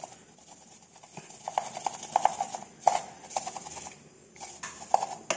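Irregular hollow taps and knocks as a whole tilapia is salted and handled, several quick taps close together, then one more near the end.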